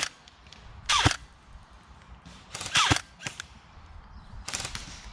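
Airsoft guns firing single shots, several sharp cracks at irregular intervals about a second apart.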